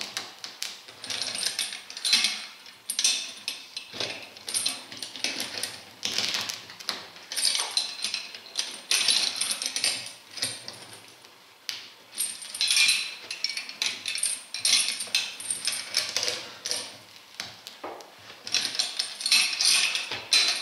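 Rubber tread being ripped off an Omskshina OI-25 truck tyre with long-handled pincers, the steel pincers and their chain clinking and rattling. The sound comes in irregular bursts with short pauses as each pull is taken.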